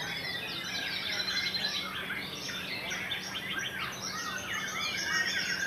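Many white-rumped shamas singing at once: a dense, unbroken tangle of overlapping whistles, fast trills and chirps.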